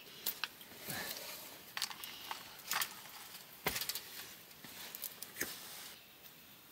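A scattered run of light clicks and knocks, with one duller, heavier knock about midway, quietening about six seconds in.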